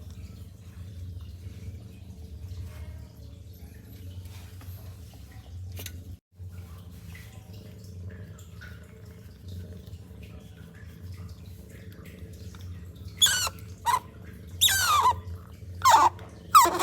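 Baby otter lapping milk faintly with small wet clicks, then, about thirteen seconds in, giving a series of loud, high-pitched squealing calls that sweep up and down in pitch.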